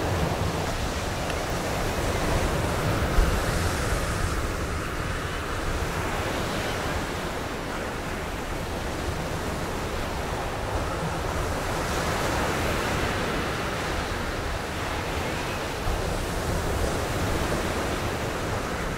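Sea surf breaking and washing up a sandy shore, with wind rumbling on the microphone and one short bump about three seconds in.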